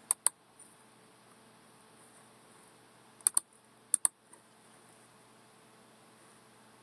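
Computer mouse clicking: three quick pairs of clicks, one at the start, one about three seconds in and one about four seconds in, over a faint steady hiss.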